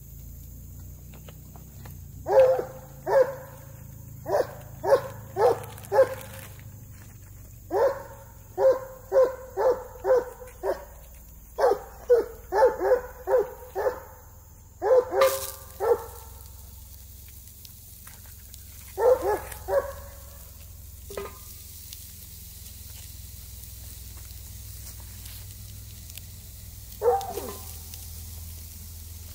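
A dog barking in quick runs of short, sharp barks, about two or three a second, for much of the first half. A shorter burst of barks follows later, and one more bark comes near the end.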